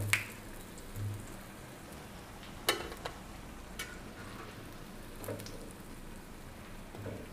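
Potato cutlets shallow-frying in oil on a flat griddle, a steady sizzle, broken by a few sharp clicks and scrapes of a metal spatula on the pan as the cutlets are lifted out. The loudest click comes about two and a half seconds in.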